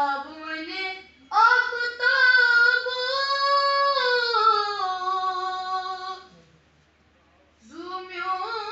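A boy singing a naat, a devotional Islamic poem, unaccompanied: a short phrase, then a long drawn-out line of about five seconds with the pitch gliding up and down, a brief pause, and a new phrase beginning near the end.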